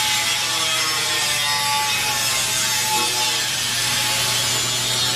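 Handheld grinder with a thin cut-off disc cutting into a polished metal tube bar: a steady loud hissing grind over the motor's whine, which wavers in pitch as the disc bites.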